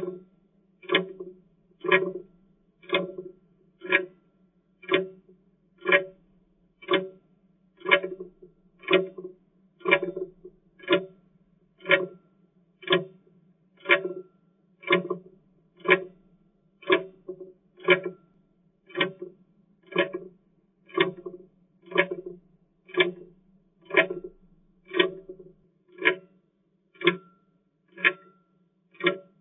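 Clock tick-tock sound, one short tick each second, keeping time with a countdown.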